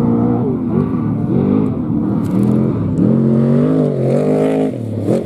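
Desert race truck's engine revving up and down repeatedly as it races past over rough dirt, its pitch rising and falling with the throttle.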